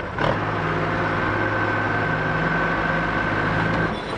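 Tipper truck's engine driving the hydraulic tipping gear as the tray rises: a steady engine hum with a high whine over it, which starts just after the beginning and cuts off about four seconds in when the lift stops.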